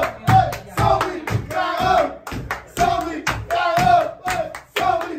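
A small group clapping their hands in a steady rhythm while singing or chanting together.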